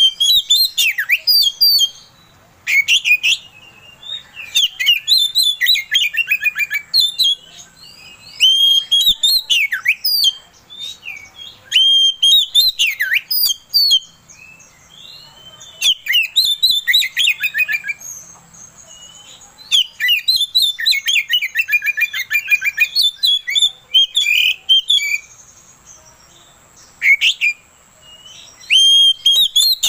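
Oriental magpie-robin singing: loud, varied phrases of clear whistles, sweeping notes and fast chattering trills, in bursts of one to three seconds with short pauses between.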